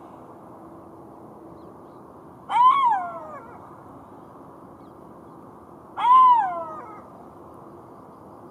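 Golden jackal howling: two short calls about three and a half seconds apart, each rising briefly and then sliding down in pitch.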